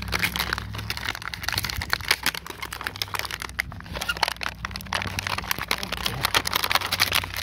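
Clear plastic clamshell packaging being handled and pried open to free the flashlight: a dense, irregular run of small crackles and crinkles. Under it is a low rumble of handling noise from fingers close to the microphone.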